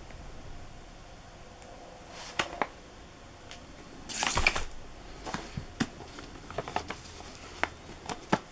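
Cardboard firework tubes and boxes being handled: scattered light taps and clicks, with a brief papery rustle about four seconds in.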